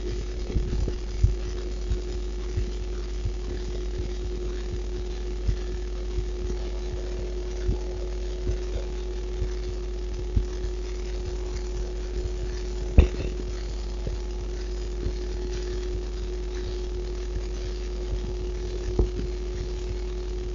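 A woman's heartbeat beating quite strong: soft low thumps roughly once a second over a steady low rumble and a faint hum. One sharper, louder knock comes about two-thirds of the way through.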